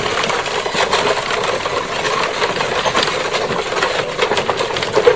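Horse-drawn wooden farm cart rolling over a gravel track, its wheels and body rattling and clattering continuously.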